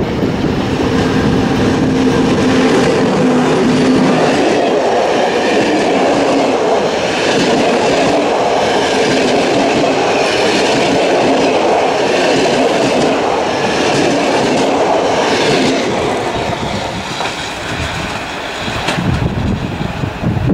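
Romanian Class 40 electric locomotive passing at speed with its passenger coaches. A steady hum as the locomotive goes by gives way to the rumble and clickety-clack of the coach wheels over the rail joints. The sound fades near the end as the train moves away.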